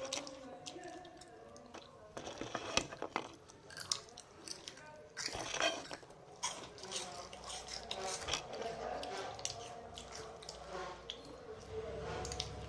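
Many small clinks and crunchy rustles of a spoon and bowl with puffed corn snacks, mixed with chewing and faint voices in the background.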